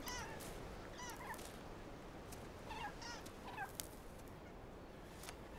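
Megapodes giving faint, short rising-and-falling calls in small groups, about once a second, over a steady background hiss. There are a few sharp clicks, the clearest a little past the middle.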